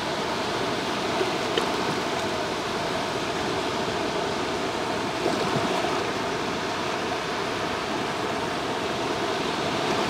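Sea surf washing in over the shallows, a steady rush of small breaking waves.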